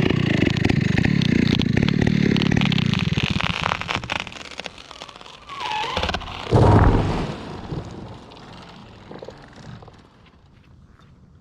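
Two-stroke Stihl chainsaw running loudly, then fading out over a few seconds. A single heavy, low thud comes about seven seconds in.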